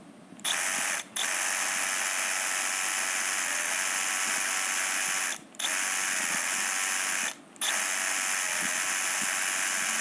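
Milwaukee Fuel brushless cordless drill boring into a concrete ceiling, running steadily. It stops briefly three times: about one, five and a half, and seven and a half seconds in.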